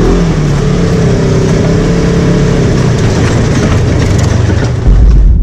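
A Polaris RZR XP 1000 High Lifter side-by-side's twin-cylinder engine running steadily as it drives along a dirt trail, heard from the cab. Near the end a loud low rumble takes over.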